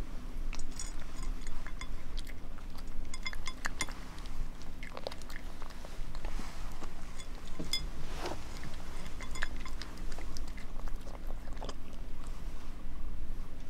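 A cat crunching dry kibble from a plate, irregular crunches and clicks of chewing, thinning out near the end as it lifts its head.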